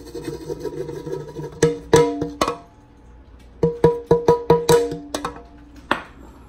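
A round metal cake pan being knocked against the counter to shake out the excess flour after greasing and flouring. Each knock rings, in two groups: four knocks, then a quicker run of about seven, with a short scraping rub at the start.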